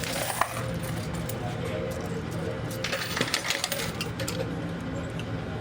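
Quarters dropping into a coin pusher and clinking against the coins on its shelves, with a dense cluster of metallic clinks about three seconds in, over the machine's steady hum.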